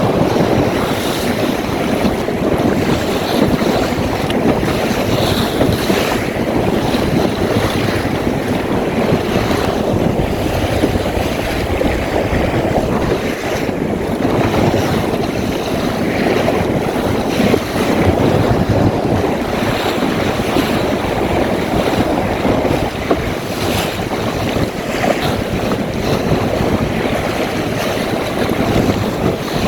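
Steady loud rush of strong wind buffeting a helmet-mounted camera microphone, mixed with waves and water rushing against the hull of a small Magnum 422 sailboat under sail at speed.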